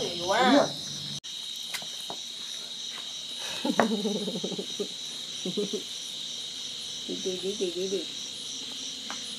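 Crickets and other night insects chirring: a steady high trill with a higher note pulsing about three times a second above it.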